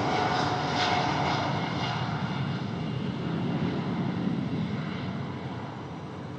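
Boeing 787's twin jet engines running at power as the airliner rolls down the runway away from the listener, a steady rumble and hiss that slowly fades.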